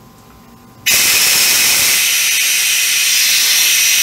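Compressed test air released from a repaired steam coil through an opened valve: a loud, steady hiss that starts suddenly about a second in, letting off the leak-test pressure.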